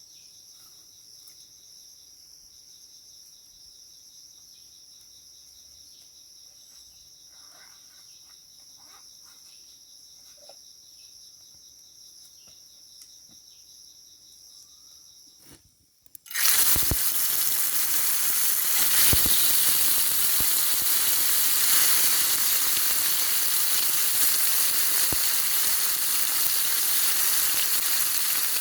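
Crickets chirping steadily with a few faint clicks. About 16 seconds in, this gives way abruptly to a loud, steady sizzling hiss of food frying.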